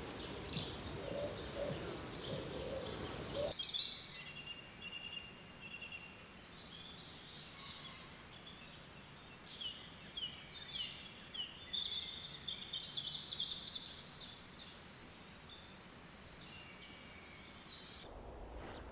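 Woodland birdsong: several small birds chirping and singing in short, quick notes over a faint background hiss. A heavier rushing noise in the first few seconds drops away about three and a half seconds in, and the chirping is busiest after that.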